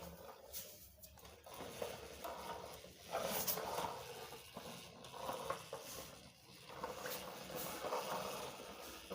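Irregular rustling with light clicks and knocks, the sound of a toy car and its packaging being handled.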